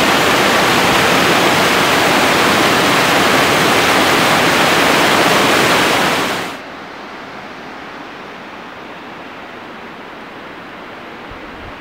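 Loud, steady rushing noise with no pitch, like wind or falling water, that cuts off abruptly about six and a half seconds in, leaving a much quieter steady outdoor hiss.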